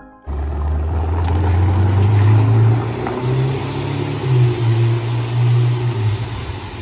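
Red Ferrari sports car's engine running loud as the car pulls away up the street, starting abruptly a moment in; its pitch steps up about three seconds in and sinks again near the end.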